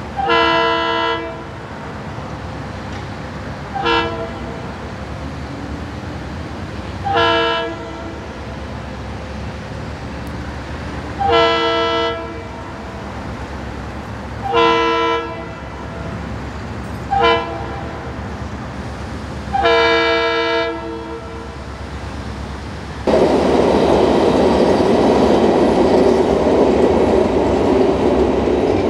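Approaching Florida East Coast Railway diesel locomotive sounding its multi-note air horn in seven blasts, long and short, the last four in the long-long-short-long grade-crossing pattern. About 23 seconds in, a loud steady rush of train running noise sets in and carries on.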